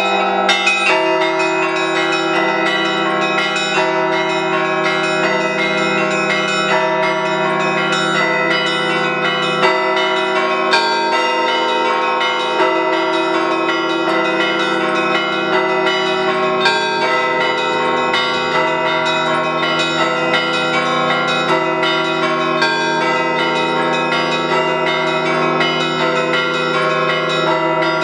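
Russian Orthodox church bells played by a single bell ringer in a Paschal peal: bells of several sizes struck in quick succession, their tones overlapping in a continuous ringing.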